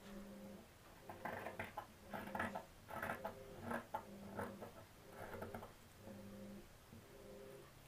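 Large scissors snipping through blouse fabric along a chalk line: a run of faint, soft cuts, about one a second.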